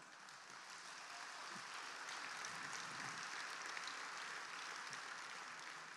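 Audience applauding, faint: the clapping builds over the first couple of seconds and dies away near the end.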